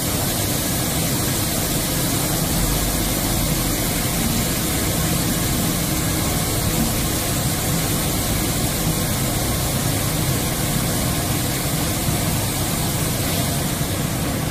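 Touchless automatic car wash machine running, with a steady, loud rushing noise that does not let up.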